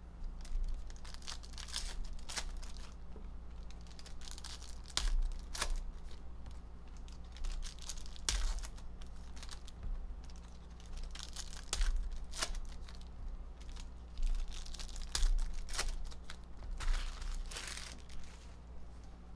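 Foil trading-card pack wrappers being torn open and crinkled, with cards handled and tapped onto stacks in irregular sharp clicks. A steady low hum runs underneath.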